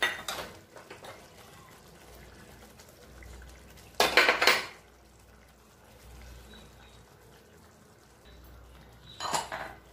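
Eggs being cracked on a cooking pan and dropped into the gravy: a sharp knock at the start, then two louder clattering cracks about four and nine seconds in.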